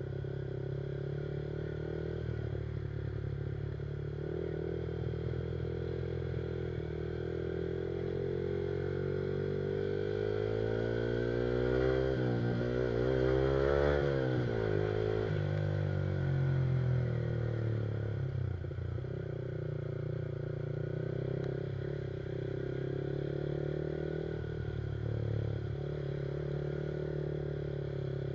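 Yamaha R15's single-cylinder engine with an Akrapovic exhaust, running under way. It revs up through the middle and drops back down.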